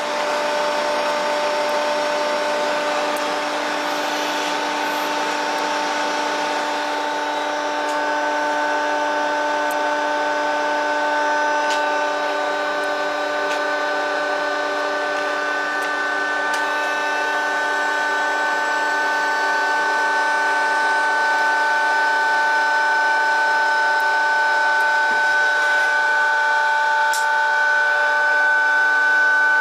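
Hydraulic press running: a steady mechanical whine of several held tones, growing slightly louder over the second half.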